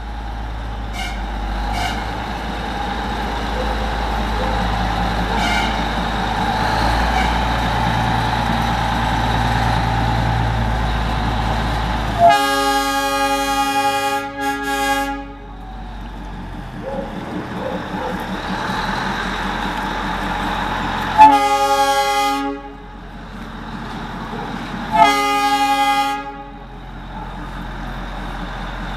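Darjeeling Himalayan Railway narrow-gauge locomotives: a steady engine rumble, then three blasts of a locomotive horn. The first blast comes about 12 seconds in and lasts under two seconds; the others come about 21 and 25 seconds in.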